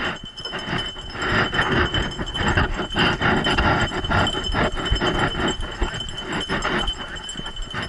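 Metal clips and fittings on a running dog's harness and tug line clinking and rattling with each stride, a quick, irregular series of clinks and knocks.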